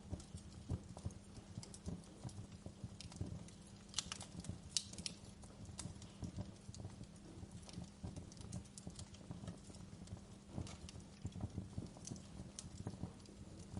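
Wood campfire crackling: irregular sharp pops and snaps of burning wood over a low, steady background of the fire.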